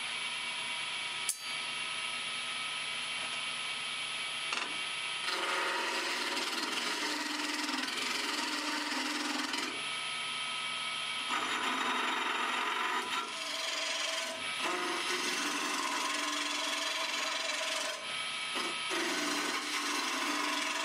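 Wood lathe running with a steady hum while a turning tool cuts and scrapes the spinning wood blank in stretches of a few seconds, with short breaks between. A single sharp click about a second in.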